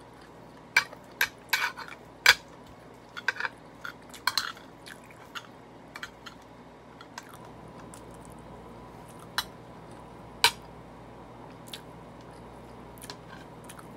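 Close-up eating sounds from a bowl of beef bone soup: a run of sharp clicks and knocks of dishes and chewing over the first few seconds, then only occasional single clicks.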